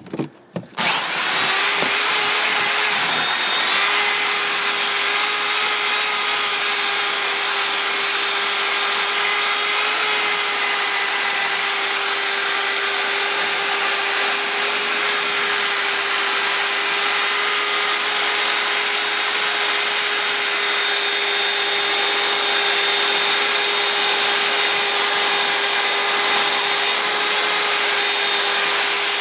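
Electric drill spinning a 3D-printed frother in a tub of water and foaming agent, whipping it into foam for aircrete. It starts about a second in and runs at one steady speed with an even whine.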